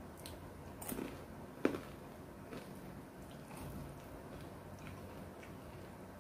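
A person chewing a mouthful of food, with two short crunches, the second louder, about one and nearly two seconds in.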